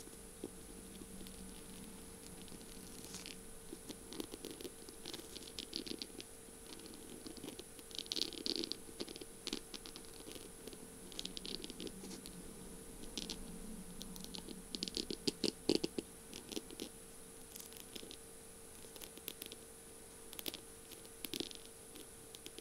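Long fingernails tapping and scratching on the beaded, jewel-studded barrel of a feather pen: quick clusters of sharp little clicks with short pauses between.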